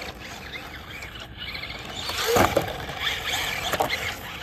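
Traxxas LaTrax Rally 1/18-scale electric RC car driving on loose dirt, its motor whining up and down as the throttle is worked and the wheels spin, with a louder surge about halfway through.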